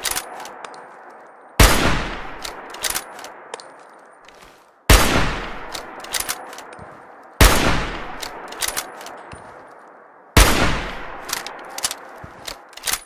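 Hunting rifle fired four times, roughly every three seconds, each shot trailing off in a long echoing tail. A few short, sharp metallic clicks follow each shot.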